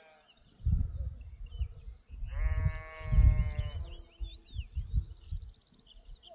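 A sheep bleats once, one long slightly wavering bleat of about a second and a half near the middle, with small birds chirping throughout. Low gusts of wind rumble on the microphone on and off.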